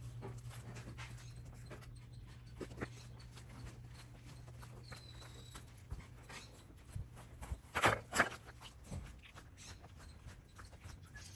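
Bobcat S450 skid steer's diesel engine running with a steady low hum, with scattered knocks of concrete being worked. Two sharp, loud knocks come close together about eight seconds in.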